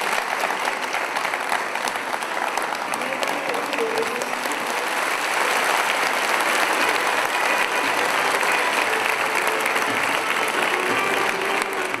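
A large audience applauding, dense steady clapping that continues without a break.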